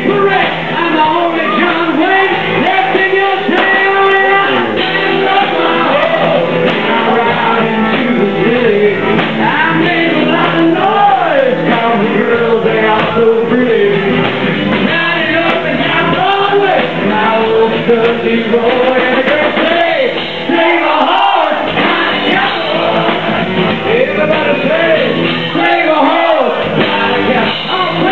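Loud live country-rock band with acoustic guitar and a male lead vocal. The sound is dull and lacks treble, as from a low-quality recording made in the crowd.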